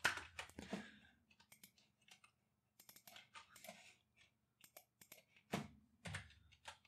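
Computer keyboard typing: faint, scattered keystrokes coming in short runs with pauses between them.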